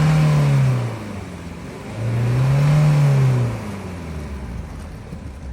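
Nissan Terrano engine revving twice: the first rev dies away within the first second, and a second rev rises and falls again about two seconds in, with the engine running lower between and after.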